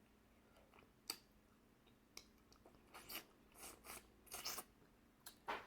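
Faint eating sounds: someone chewing seafood, with scattered short clicks and brief crunchy rustles between quiet stretches.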